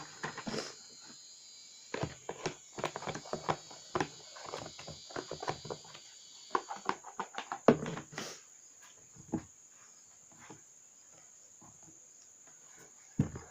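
Irregular tapping, clicking and knocking of slime ingredients and their containers being handled, a rapid run of knocks for about six seconds and then a few isolated taps, over a faint steady high hiss.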